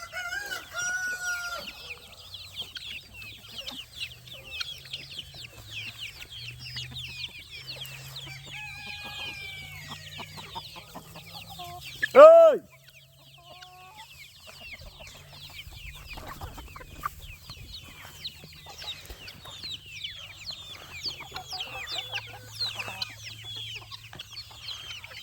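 A flock of chickens clucking and chattering, with a rooster crowing near the start and again around eight seconds in. A man shouts "Hey!" once about halfway.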